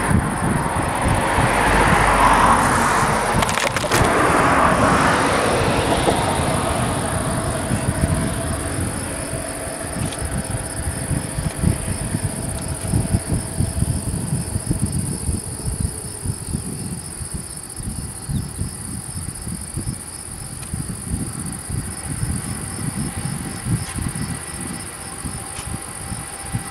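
A broad rushing noise swells and fades over the first several seconds, then wind gusting on the microphone with insects chirping beside the railway line. Near the end a freight train approaches faintly in the distance.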